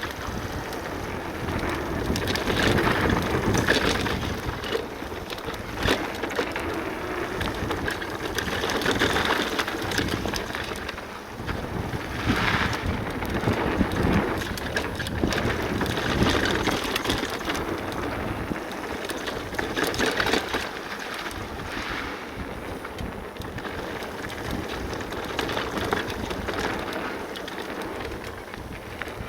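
Cube full-suspension enduro e-mountain bike riding down a bike-park trail: tyres rumbling over the dirt surface and the bike clattering over bumps, with wind on the microphone, surging and easing every few seconds.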